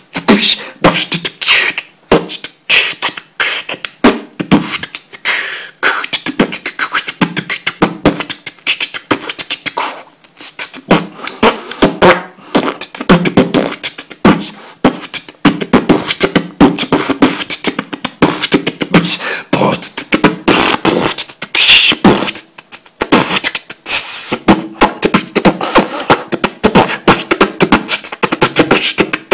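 A man beatboxing: a fast run of sharp, rhythmic mouth-percussion sounds, broken by a few short pauses.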